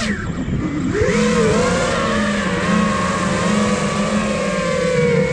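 Motors and propellers of a 5-inch FPV freestyle quadcopter (iFlight Nazgul Evoque F5) whining in flight. Right at the start the pitch drops sharply as the throttle is cut, then rises back within about a second and holds, wavering slightly with throttle.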